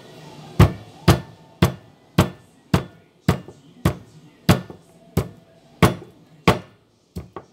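Sharp knocks repeated at a steady pace, a little under two a second, from food being worked by hand in a kitchen.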